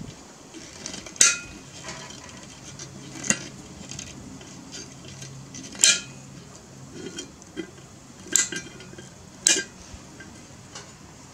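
Pliers clinking against a steel wheel rim while pulling a valve stem out of it: five sharp metallic clinks, a second or two apart.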